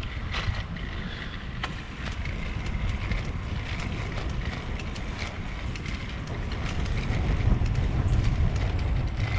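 Wind rumbling on the microphone of a moving rider, growing louder late on, with scattered sharp ticks.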